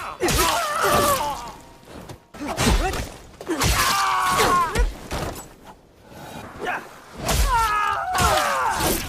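Katana sword-fight effects: three loud bursts of clashing blades and impacts, each with a ringing, falling metallic scrape.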